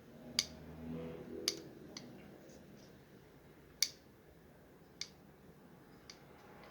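Eyeglass temples clicking: sharp single clicks at uneven intervals, about five clear ones with a few fainter ticks between.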